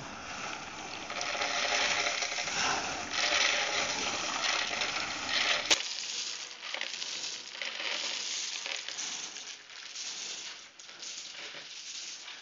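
Dried cacao beans pouring down a pipe chute into a jute sack: a dense rattling rush for about six seconds, then a sharp click and a thinner, patchier rattle as the flow trickles.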